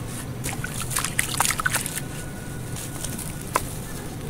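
A dry charcoal-and-sand block being squeezed and crumbled by hand. A cluster of gritty crackles and crunches about a second in, and a single sharp crack near the end, as lumps and powder fall away.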